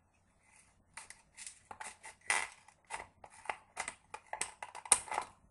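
Scissors cutting through the thin plastic of a 2-liter soda bottle: a run of irregular snips starting about a second in.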